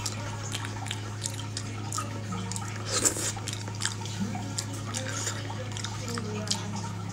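Close-up wet chewing and lip-smacking of soft, sticky braised pork knuckle, a string of short smacks and clicks with a louder one about three seconds in. A steady low hum runs underneath.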